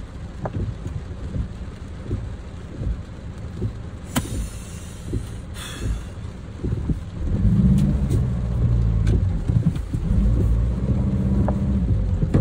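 Skoda Octavia II driving slowly along a muddy dirt track in the rain, heard from inside the cabin: a low engine and tyre rumble that grows louder about seven seconds in, with scattered light taps and a brief hiss about four seconds in.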